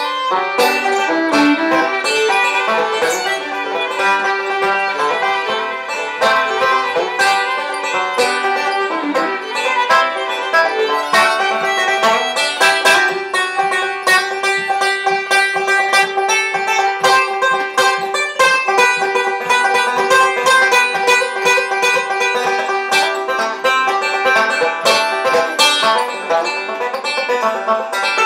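Instrumental bluegrass-style music led by a picked banjo, with rapid plucked notes throughout and a long held note underneath from about halfway.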